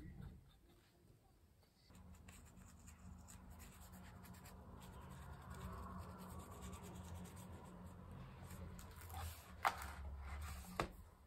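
Faint scratching of a fine paintbrush stroking over a paper collage page, with a low steady hum beneath from about two seconds in. Near the end come two sharp clicks as the brush taps in the plastic paint palette.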